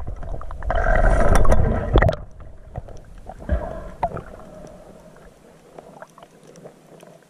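Underwater sound picked up by a diver's camera: a loud rushing, burbling noise that cuts off sharply about two seconds in, then quieter water noise with scattered clicks and a dull knock.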